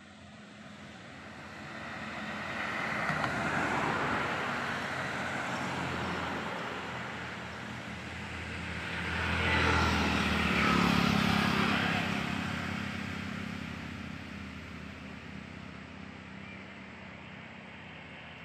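Road vehicles passing one after another: a first swells up and fades about four seconds in, and a second, louder one goes by around ten seconds in, each a rising and fading rush of tyre noise with a low engine hum.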